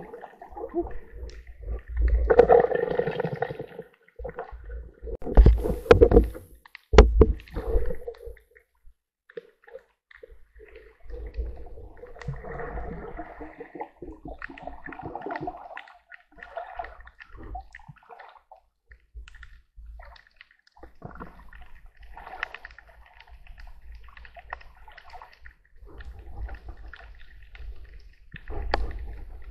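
Underwater sound heard through a camera housing: muffled gurgling and sloshing of water as a snorkel diver swims, with louder surges in the first eight seconds and a couple of sharp knocks about six and seven seconds in, then softer, patchy swishing.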